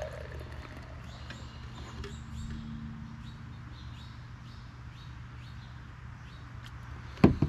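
Beer pouring from a can into a pint glass, with birds chirping in short, repeated falling notes. Two sharp knocks come near the end.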